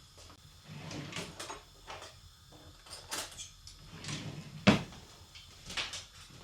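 Household objects being handled: a run of short rustles and light knocks, with one sharp knock a little under five seconds in.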